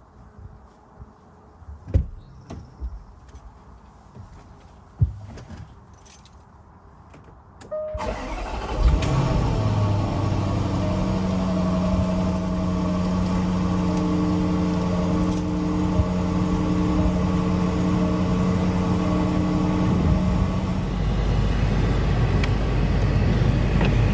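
A few light clicks and knocks of plastic being handled. About eight seconds in, a car engine starts and then runs steadily at idle. Its tone shifts lower about three seconds before the end.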